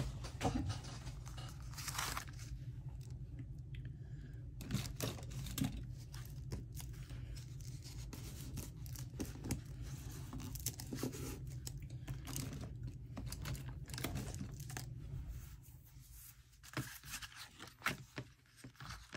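Paper pages being handled and fitted together, with scattered rustles, crinkles and small taps.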